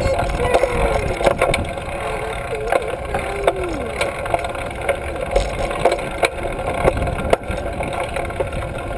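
Trail-a-bike rolling along, heard from a handlebar-mounted camera: a steady rumble of tyres and wind on the microphone, with frequent clicks and rattles from the bike. A few short sliding pitched sounds, like a child's voice, rise and fall over it.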